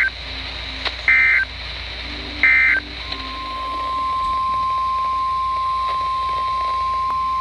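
Emergency Alert System signals: three short warbling bursts of SAME digital data about a second and a half apart, then the single steady NOAA Weather Radio 1050 Hz alert tone, which starts about three seconds in and holds to the end. The tones mark the break between one weather warning and the next.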